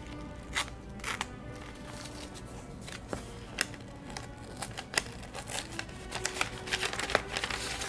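Paper rustling and crinkling, with a handful of short sharp crackles, as newsprint wrapping is unfolded from a small box and washi tape is peeled off, over quiet background music.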